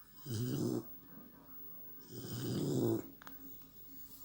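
American Staffordshire terrier puppy snoring in its sleep: two snores, a short one just after the start and a longer one of about a second near the middle.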